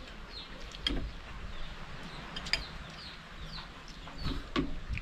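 Chickens calling: a string of short, high, falling peeps, two or three a second, with a few lower clucks. A few sharp clinks, spoons on plates, come in between.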